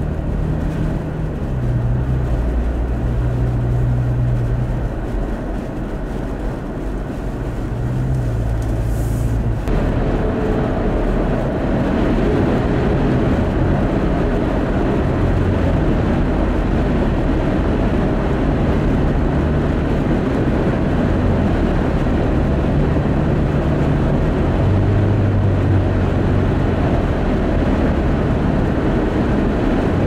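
Steady vehicle engine hum and road noise heard from inside a moving car's cabin. About ten seconds in, the noise gets louder and fuller.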